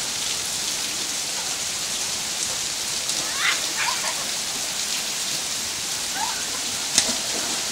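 Heavy rain falling steadily, a dense hiss, with faint distant shouts of children a few times. A single sharp click near the end.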